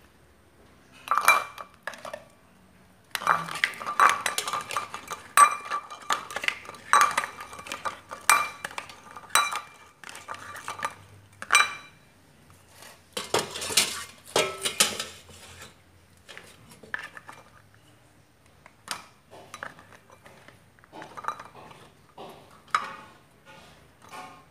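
A plastic spoon and hard-boiled eggs clinking and knocking against a steel steamer pot and a ceramic bowl as the eggs are lifted out and rolled in red dye: a run of sharp, ringing clinks, busiest in the first half and sparser and fainter later.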